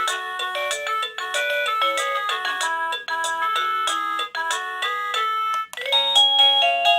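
KooPower wireless doorbell receiver playing its electronic chime melodies at the loudest volume setting, a quick run of beeping notes in a tune. Near the end one melody breaks off and the next one starts, as the receiver steps through its built-in tunes.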